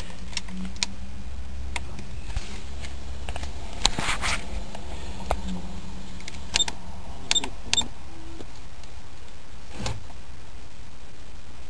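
Scattered clicks and taps from handling the dash wiring and pressing the buttons of an aftermarket Sony car stereo head unit, over a steady low hum.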